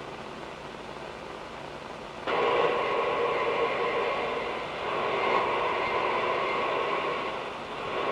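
Shortwave receiver on CB channel 6 (27.025 MHz AM) hissing with static. About two seconds in, a skip station's carrier keys up over it as a steady drone with held tones, fades a little midway, and drops out suddenly at the end.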